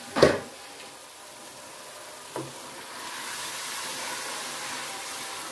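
Keema masala sizzling in a wok as it is stirred with a wooden spatula, its cooking water nearly boiled off. A sharp knock about a quarter-second in and a lighter one about two seconds later, then the sizzle grows louder from about three seconds in.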